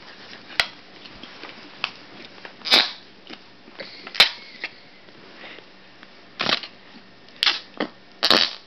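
Green slime being squeezed, letting out sharp wet pops and fart-like squelches at uneven intervals, about seven in all, several close together near the end.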